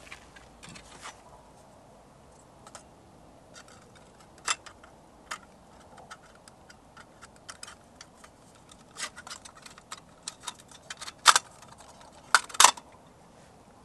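Small metal clicks and taps as a candle lantern is handled on its hook, coming irregularly and growing busier, with the sharpest clacks in the last three seconds.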